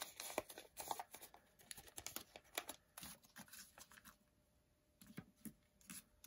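Faint crackling and ticking of folded origami paper as fingers press and flatten the creases of a triangle twist tessellation. The crackles come thickly for the first few seconds, die away to near silence about four seconds in, then return sparsely.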